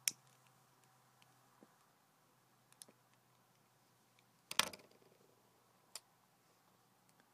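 Quiet handling sounds of a briar tobacco pipe being smoked: a sharp click as the stem goes to the mouth, a few faint ticks, one louder short burst about four and a half seconds in, and another click about a second later.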